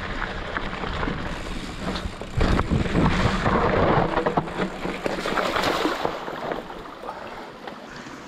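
Rushing, rumbling noise like wind buffeting the microphone, swelling loudest from about two and a half to four and a half seconds in, then easing off.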